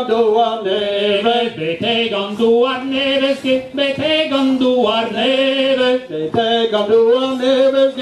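A singer's voice carrying a Breton dance song, holding long notes and moving between them.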